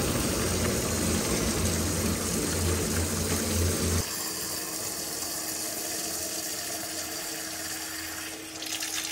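Water running from a tap into a container being filled, with a low hum that stops about four seconds in.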